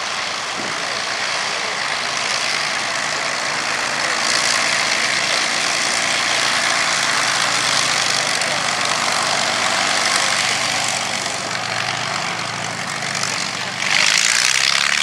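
The four Rolls-Royce Merlin V12 engines of an Avro Lancaster bomber running steadily at taxi power. There is a sudden jump in loudness about a second before the end as the aircraft passes close by.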